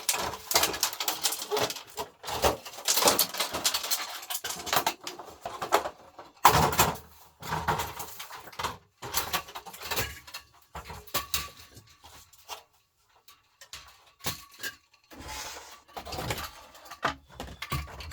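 Metal clattering, knocks and scraping as a fluorescent light fitting is pried apart and handled by hand. It goes quiet for a couple of seconds about two-thirds of the way through.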